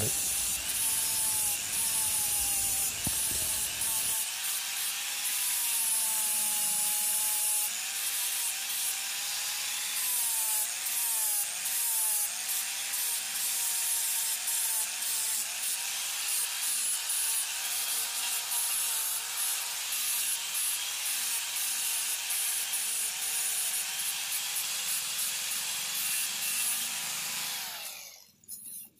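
Electric angle grinder fitted with a sanding disc, running against a wooden plank as it sands the wood around drilled holes. Its motor whine dips and recovers in pitch as the disc is pressed into the wood. It stops just before the end.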